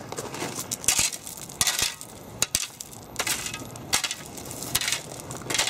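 A shovel scraping and scooping through crushed-stone gravel, clearing clumps of dirt out of it. It makes about seven gritty crunching strokes, roughly one every three-quarters of a second.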